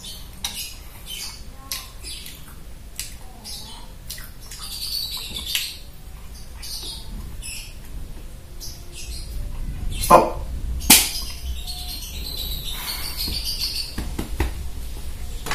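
Birds chirping in short, high calls scattered throughout. Two brief sharp knocks about a second apart come about two thirds of the way through.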